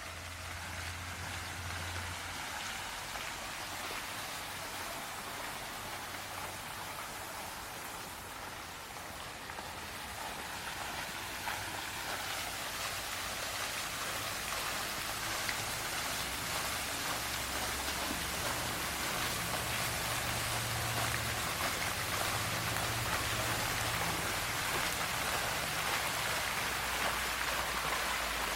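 Rain falling and pattering on surfaces, growing steadily heavier, with a faint low rumble underneath.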